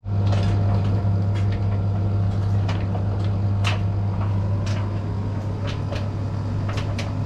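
A steady low machine hum with scattered light clicks and taps.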